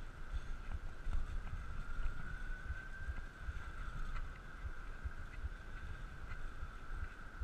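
Wind buffeting the microphone of a moving bicycle, a constant low rumble, over a steady high whine that rises slightly in pitch about halfway through.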